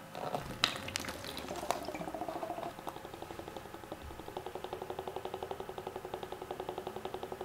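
Glass mason jar of water knocking a few times as it is upturned and set down on its 3D-printed watering lid, then bubbling in a quick, even run, about eight or nine bubbles a second. Air is drawn in through the lid's air hole as water flows out through its water hole into the planting tray; the bubbling goes on while the water still has to spread to the far end of the tray.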